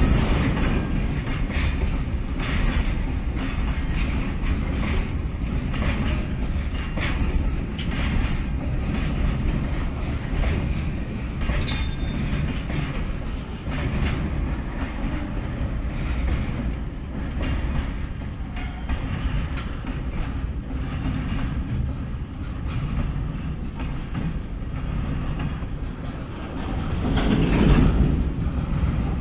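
Freight train of BOXNHL open steel wagons rolling past, steel wheels clicking over the rail joints over a steady low rumble. The sound swells louder for a moment near the end.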